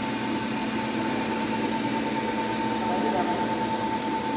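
TIG welding on stainless steel pipe: a steady arc hiss with a constant high tone running under it.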